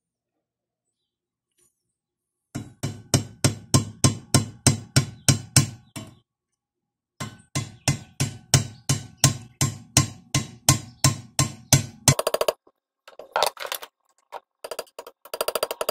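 Hammer blows driving a knife blade's tang into the end of a wooden broomstick handle held in a vise. The blows start about two and a half seconds in at a steady three or so a second, in two long runs. Near the end comes a fast, sped-up stream of blows.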